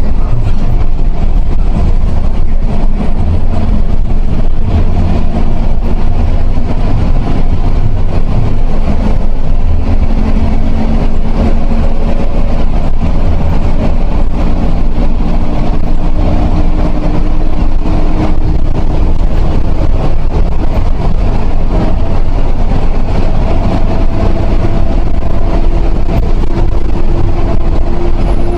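Steady engine and road noise of a MIRA intercity bus travelling at speed. A faint engine tone climbs slowly here and there as the bus pulls harder.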